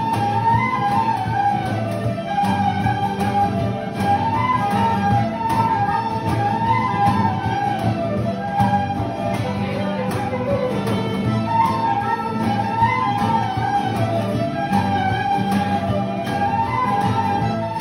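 Irish-style session group playing an instrumental jig or reel: fiddle and flute carry a quick running melody over strummed guitar chords and bodhrán.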